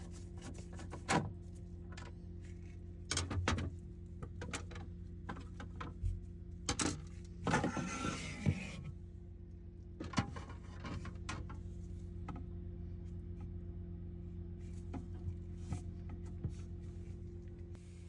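Clicks, knocks and a rustling scrape of hard plastic as a screw is backed out and the plastic water-filter housing inside a Frigidaire refrigerator is worked loose and pulled off, over a steady low hum.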